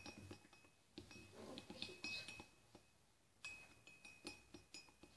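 A spoon stirring in a ceramic mug, clinking faintly against its sides in quick runs of light clinks, with a short pause about halfway through.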